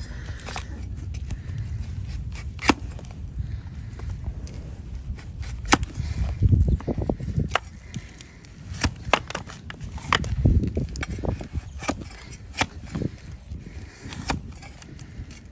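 Large flat hoof-paring knife cutting through a donkey's dry hoof horn: irregular sharp, crisp snaps as the blade slices off shavings. Twice there is a heavier, dull thump.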